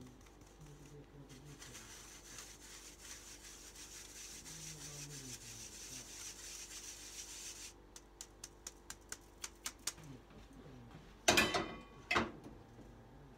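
Flour and cocoa powder being rubbed by hand through a stainless steel mesh sieve into a steel bowl, a steady scratchy rasp. Then a run of quick light taps, about five a second, and two loud ringing metal knocks near the end.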